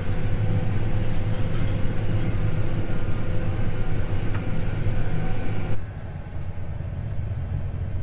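Farm tractor engine running steadily. About six seconds in, the sound drops abruptly to a quieter, lower engine hum.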